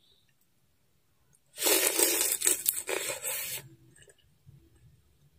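A person slurping soup noodles: one loud, noisy slurp of about two seconds, starting about a second and a half in.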